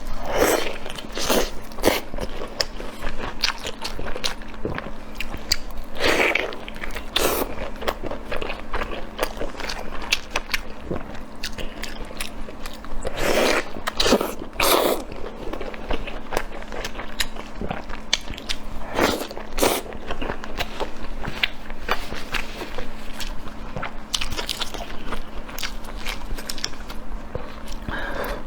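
Close-miked eating: a person biting and chewing food with crunching and crackling mouth sounds, in irregular bites through the whole stretch.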